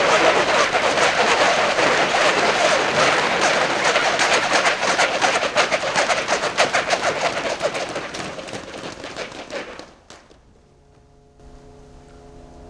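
Dense crackling rustle of a large sheet of crinkly stage material being shaken and rippled across the floor. It fades away and is nearly silent about ten seconds in. Faint steady humming tones begin near the end.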